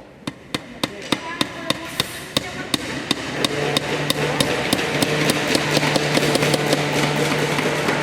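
Hammers driving nails into wooden boards: a steady run of strikes about three a second, then denser tapping as several hammers strike at once.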